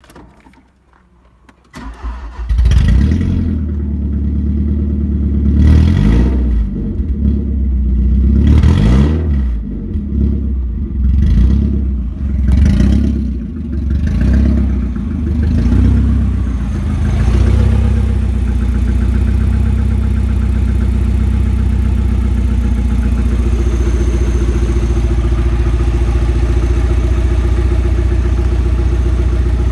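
Volkswagen Passat B5's 1.8-litre four-cylinder petrol engine starting about two seconds in, then revved in a series of short blips for about fifteen seconds. It then settles into a steady idle.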